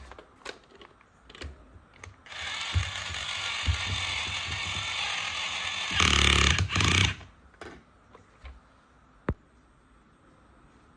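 Small electric toy drill running, its motor and plastic gears whirring steadily for about five seconds, loudest just before it stops. Light plastic clicks come before and after, with one sharp click near the end.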